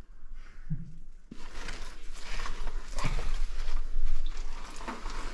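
A caver moving through a tight rock passage: clothing and gear scraping and rustling against rock, with scattered knocks, close to the microphone. It starts about a second in.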